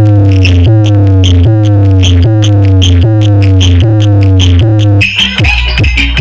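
Loud electronic DJ remix music from a DJ sound system: a heavy sustained bass with falling synth notes repeating about every 0.8 s. About five seconds in it switches to a pounding drum beat.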